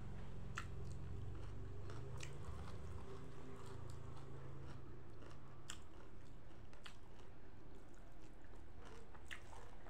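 A person chewing and biting food close to the microphone, with scattered sharp wet mouth clicks. A steady low hum runs underneath and fades about halfway through.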